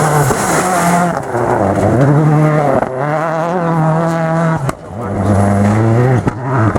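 Rally car engines at high revs, the pitch climbing, holding and dropping several times with sharp breaks between, as on lifts off the throttle or cuts between passes.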